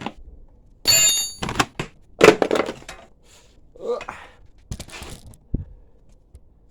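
Metal clinks and clunks of hand tools and bolts being handled, one clink ringing briefly about a second in, with a low thump near the end.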